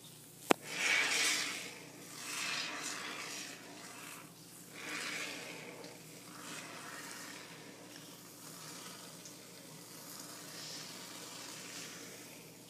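Aerosol can of Great Stuff Gaps & Cracks polyurethane spray foam dispensing through its straw: a hiss that swells three times in the first six seconds, then runs on fainter and steady. A sharp click about half a second in.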